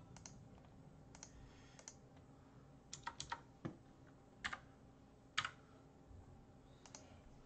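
Quiet, scattered keystrokes on a computer keyboard: about ten sharp clicks at irregular intervals, a few in quick pairs.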